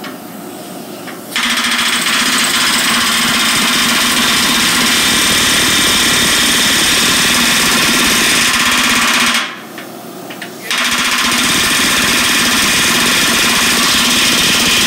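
Pneumatic rivet gun hammering rapidly, setting a hot rivet through a spoke and the hub of a steel tractor wheel. It comes in two long runs, starting about a second and a half in, with a pause of about a second just before the two-thirds mark.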